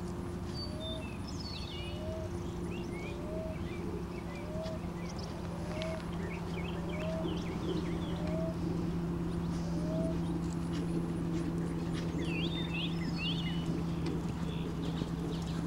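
Birds calling outdoors: one repeats a short rising note about every second and a quarter for the first ten seconds, while others chirp in short high bursts, most busily near the start and again near the end. A steady low hum runs underneath.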